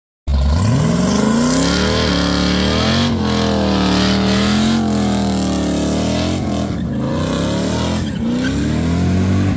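A car engine is revved again and again. It starts suddenly, and its pitch climbs and drops several times: rising in the first two seconds, dipping around three and five seconds in, and climbing again near the end.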